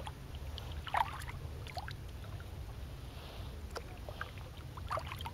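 Small splashes and drips of water against a kayak, a few scattered over several seconds, over a steady low rumble.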